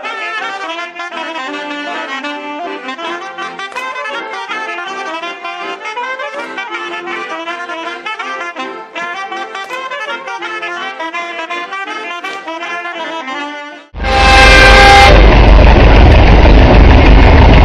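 Brass-band folk dance music with saxophone and trumpet. About fourteen seconds in it cuts to a tractor parade: a brief horn blast, then loud, rumbling tractor engines running.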